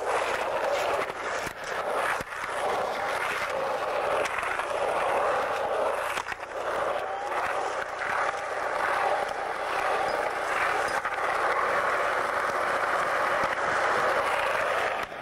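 Skateboard wheels rolling on concrete, a steady rolling noise with a few short dips.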